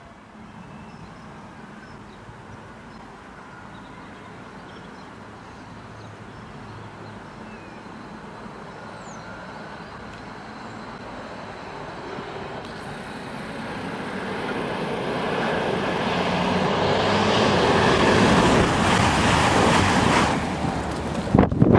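A CrossCountry Class 220/221 Voyager diesel multiple unit approaches along the main line and passes through the platform at speed without stopping. A distant rumble and rail hiss grow steadily louder, then a loud rush sweeps past close by near the end.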